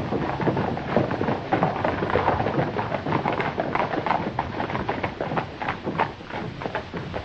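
Hoofbeats of a group of ridden horses moving along a dirt street: a dense, uneven clatter of many hooves over a rumbling noise.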